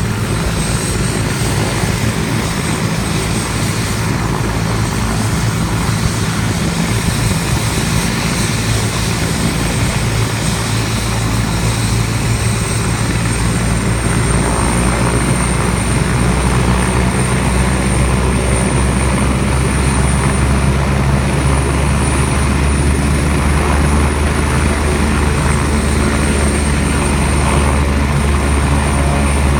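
Air-rescue helicopter running on the ground before take-off: a steady low rotor and engine rumble with a high turbine whine over it, growing louder and heavier in the low end about halfway through.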